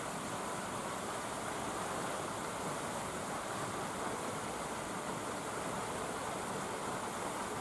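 Steady, even rushing noise with no distinct sounds in it, holding one level throughout.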